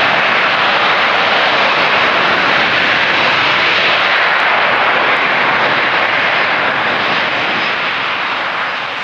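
Rolls-Royce Trent 892 turbofan engines of a Boeing 777-200ER running, a loud, steady jet rush that starts to fade over the last two seconds.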